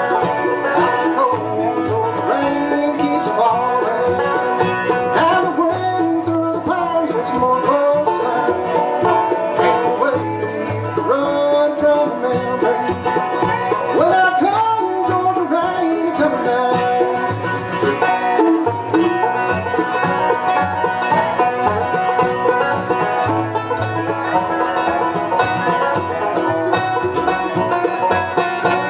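Live bluegrass band playing: banjo picking over dobro, mandolin, acoustic guitar and upright bass, with a few sliding notes and a steady bass beat.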